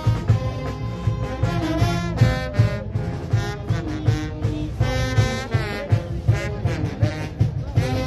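A live brass band playing dance music: brass horns carry a melody over a steady drum beat.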